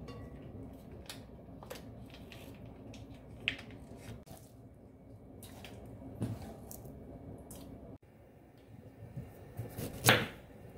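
Small clicks and rustles over a low steady hum as a soup packet is handled over a pot, then a kitchen knife cutting ginger on a wooden cutting board, with one loud knock of the blade on the board about ten seconds in.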